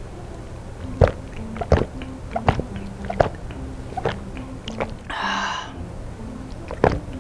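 A person gulping down a drink from a shaker bottle in big swallows, about one every three-quarters of a second, with a short rush of breath about five seconds in.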